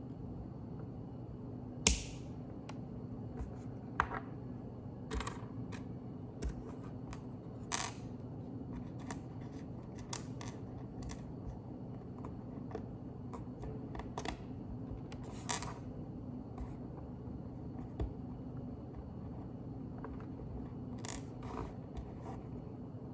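Plastic Lego bricks clicking together and being handled, in irregular sharp clicks with a few short rattles, over a steady low hum.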